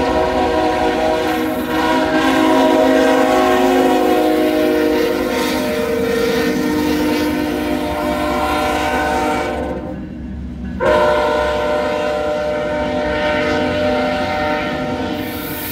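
Freight locomotive air horn blowing several steady notes together in a long blast, which breaks off for about a second partway through and then sounds again until near the end. Under it are the diesel locomotives running and the freight cars rolling past.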